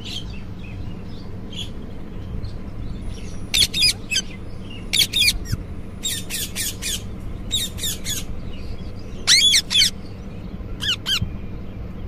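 Indian ringneck parrot squawking in about six quick bursts of several high calls each. The bursts begin about three and a half seconds in.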